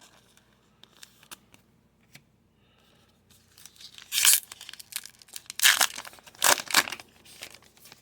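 Thin plastic card sleeve crinkling and rustling as a trading card is worked into it, with a few faint clicks of handling first and several loud crinkles from about four seconds in.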